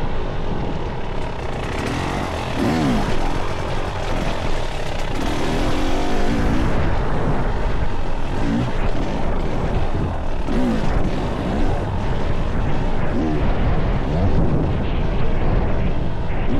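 Dirt bike engine being ridden off-road, its revs rising and falling again and again as the throttle opens and closes, under a steady rushing noise.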